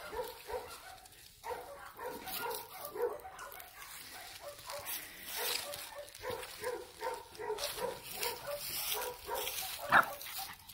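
Dogs barking over and over, a string of short barks coming several a second.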